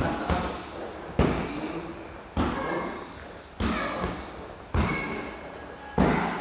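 Gloved punches landing on a hanging heavy punching bag. There is one hard thud about every 1.2 seconds, six in all.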